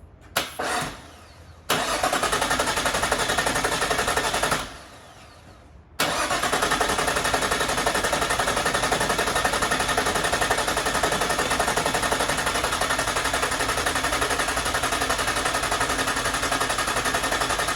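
Nissan RB25 straight-six being turned over on the starter motor without firing, its crank angle sensor unplugged and fuel pump relay out, to build oil pressure after a head gasket and head stud job. After two short blips it cranks for about three seconds, stops, then cranks again steadily for about twelve seconds.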